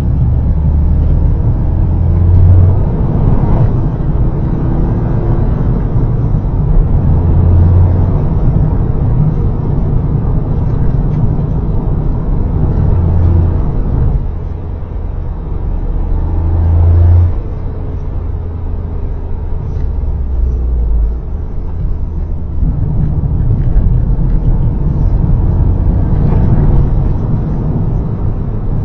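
Toyota GR Yaris's turbocharged three-cylinder engine and road noise from a car being driven hard, with the engine drone repeatedly building and dropping away every few seconds as it is revved and shifted.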